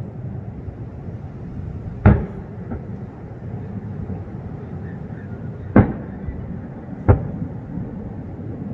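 Aerial fireworks shells bursting: three sharp booms, about two, six and seven seconds in, with a fainter pop soon after the first, over a steady low rumble.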